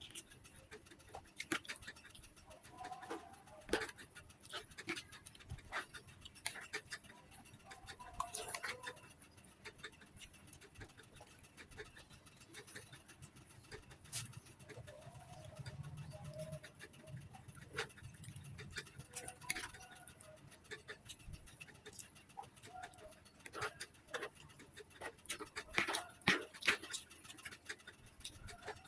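Close-miked eating sounds: chewing and mouth noises with many irregular sharp clicks spread through, busiest about 25 to 27 seconds in.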